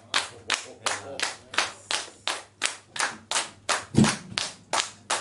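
A few people clapping their hands in steady time, about three claps a second. A single heavy thump about four seconds in is the loudest sound.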